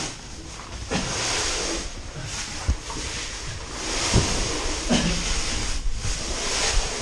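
Muddy water sloshing and splashing as a caver crawls through a flooded, low-roofed cave passage, with a few sharp knocks of body or gear against the rock.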